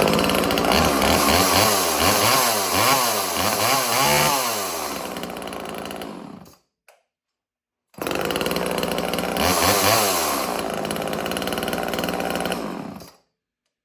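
Two-stroke chainsaw engine being revved repeatedly, its pitch rising and falling several times before it cuts off suddenly. After a short silence it runs again at a steadier speed, then cuts off.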